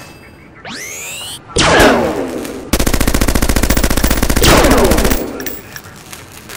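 Added sound-effect gunfire from a futuristic rifle: a rising whine about a second in, a heavy blast with a falling ring, then a rapid automatic burst lasting about two and a half seconds that trails off in falling ringing tones.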